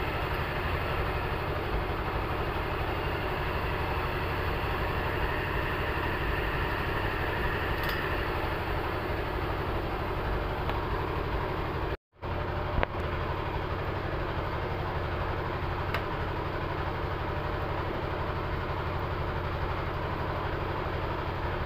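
Air blower's fan impeller driven by a water-pump electric motor, running steadily with a low hum and a rush of air. The sound cuts out for a moment about halfway through, then carries on unchanged.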